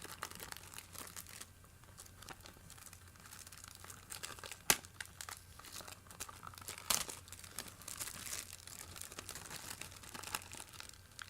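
Plastic shrink wrap crinkling and tearing as it is pulled off a Blu-ray case, with a sharp click about halfway through.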